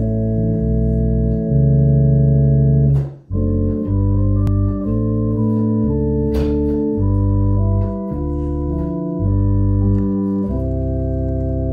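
Home console organ playing a hymn in held chords over deep bass notes, the chords changing every second or so, with a short break between chords about three seconds in.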